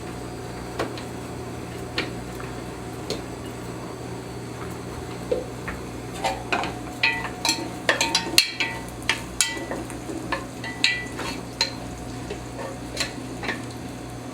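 A metal utensil stirring, scraping and clinking against a pot or skillet while bacon is cooked, with a faint sizzle. There are a few isolated clinks at first, then quick, busy clatter for most of the second half.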